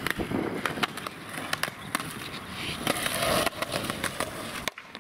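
Skateboard wheels rolling on asphalt: a steady rough roll with many sharp clicks, growing louder about three seconds in, then cutting off suddenly near the end.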